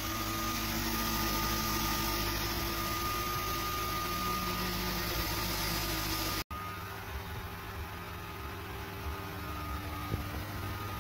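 Sculpfun S30 Ultra diode laser engraver running while cutting plywood: a steady hum of its fan and motors with a thin, steady whine. The sound cuts out for an instant a little past halfway, then returns lighter and more uneven.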